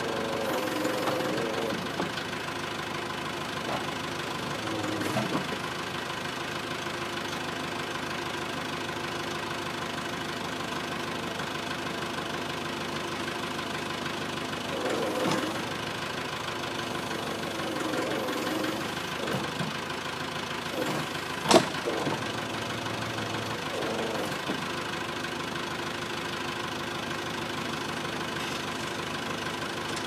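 Caterpillar backhoe loader's diesel engine running steadily as the backhoe arm digs out a stump, its note swelling briefly a few times. A single sharp crack a little after twenty seconds in is the loudest sound.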